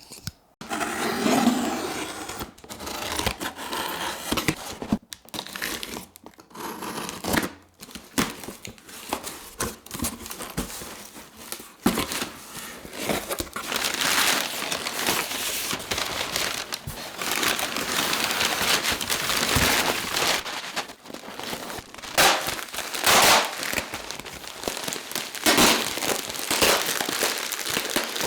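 Packing paper crinkling and rustling as it is handled and unwrapped by hand, with sharper crackles now and then.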